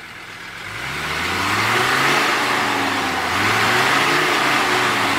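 Off-road vehicle's engine revving hard under load, its pitch rising and falling twice, with a broad hiss over it.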